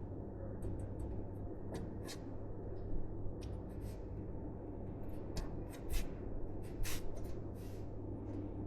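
Scattered small clicks, taps and light rustles of hands handling computer parts and small hardware, several sharper ticks bunched between about five and seven seconds in, over a steady low hum.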